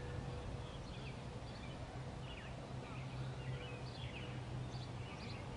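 Small birds chirping in short, scattered calls over a steady low outdoor hum.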